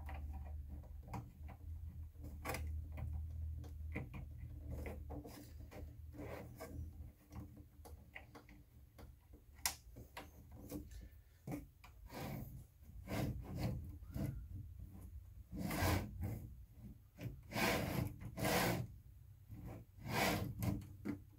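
Hands handling and fitting a small toothed pulley and spacer into a 3D printer's Y-axis bracket: scattered clicks, taps and rubbing of small plastic and metal parts, busier and louder near the end. A low hum sits under the first five seconds and then stops.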